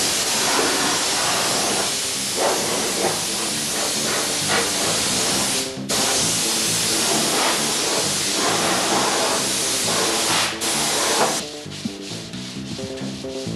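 Spray gun hissing steadily as the inside of a car body is sprayed, breaking off briefly about six seconds in. Near the end it gives way to quieter sanding, over background music.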